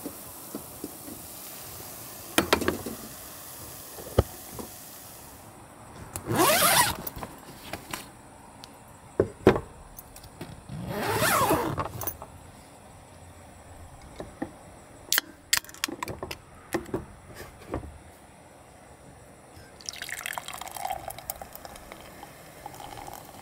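Small knocks and clicks of a glass and a beer can handled on a wooden table, with two longer scraping sounds in the first half. Near the end, beer poured from a can into a tall glass, the filling sound rising in pitch as the glass fills.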